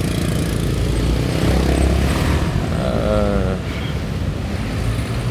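Motorcycle engine running steadily while riding, a continuous low drone. A brief wavering pitched sound comes in about three seconds in.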